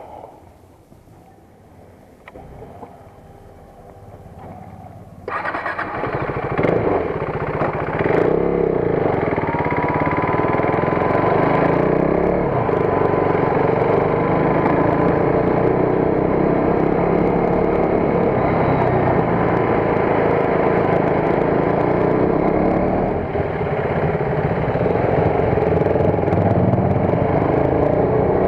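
KTM RC 390 single-cylinder motorcycle running, coming in suddenly and loud about five seconds in after a quieter stretch, then holding steady with a thin steady whine through the middle.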